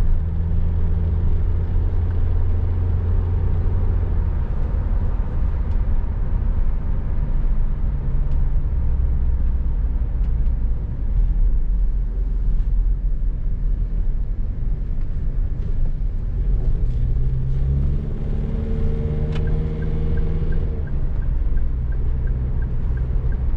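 Car engine and road rumble heard from inside a moving car. The engine note rises about three-quarters of the way through, and after that a regular light ticking runs to the end.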